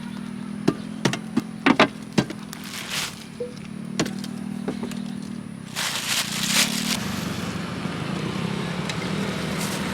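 A small engine running steadily, with sharp clicks and knocks over the first few seconds and a burst of hissing about six seconds in.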